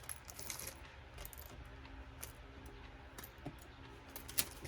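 Small hard craft pieces clicking and clinking together as they are handled, a scatter of faint, irregular light clicks.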